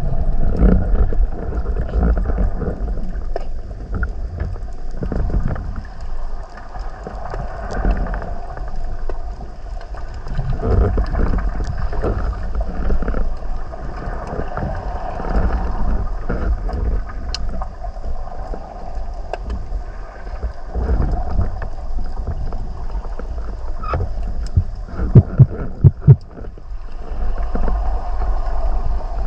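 Underwater noise picked up by an action camera in its housing on a speargun: a low, uneven rumble of water moving around the housing. Four sharp knocks come a few seconds before the end.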